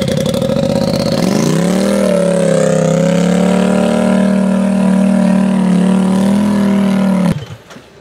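Engine of a Polaris RZR-based rock buggy running with a fast pulsing beat. About a second in it revs up and holds at steady higher revs, then cuts off abruptly near the end as it is shut down.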